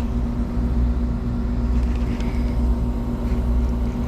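A steady low motor hum with a constant tone, unchanging throughout.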